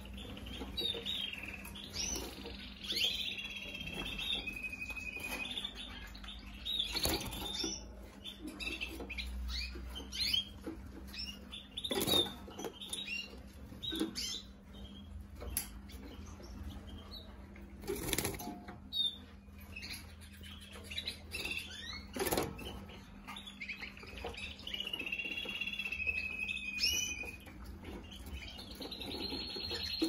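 Several caged canaries chirping, with short trilled song phrases in the first few seconds and again about 25 s in. Wings flap and sharp knocks sound now and then as the birds flit between perches.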